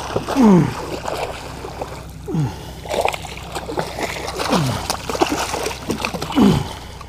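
Hooked redfish thrashing and splashing at the water's surface beside a skiff during the fight. About four short falling whines come roughly two seconds apart.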